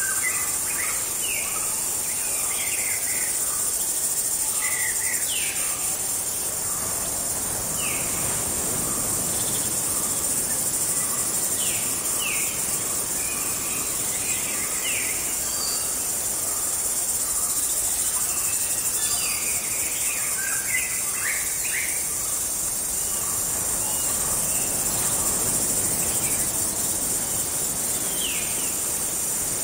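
Jungle ambience: a steady, high-pitched insect chorus, with short descending bird calls scattered over it and a soft regular pulsing call beneath.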